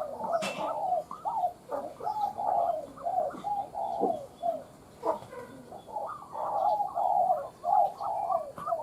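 Spotted dove cooing: runs of short, repeated coo notes, with a brief lull about four to five seconds in before the next run. It is a narrow-toned 'còi' dove call, used as a lure call for trapping doves.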